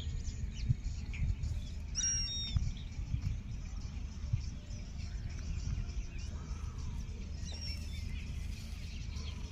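Outdoor ambience: a steady low rumble with a few short, high bird chirps, a cluster about two seconds in and another near the end.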